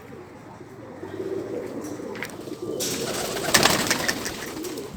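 Domestic pigeons cooing softly. A rustling hiss joins about three seconds in, with a few brief knocks.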